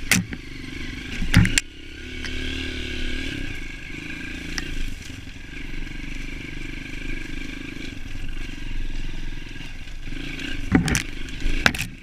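Off-road motorcycle engine running steadily at trail speed, with sharp knocks and clatter from the bike jolting over bumps, a couple near the start and two near the end.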